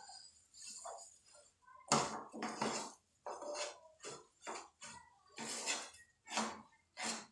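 White plastic spatula scraping and knocking around a metal pan in a string of short, irregular strokes, stirring sesame seeds into thick, hot jaggery syrup.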